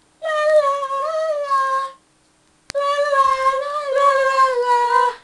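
A high voice singing a wordless tune in two long phrases, the second starting about two and a half seconds in. A sharp click comes just before the second phrase.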